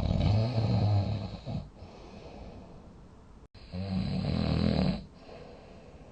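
A person snoring loudly in deep sleep. There are two long, low-pitched buzzing snores: the first comes at the start and the second about three and a half seconds in, each lasting about a second and a half.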